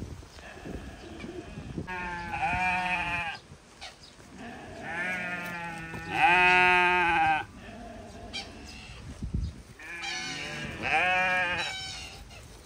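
Sheep bleating: three bouts of wavering bleats, the loudest and longest about six seconds in.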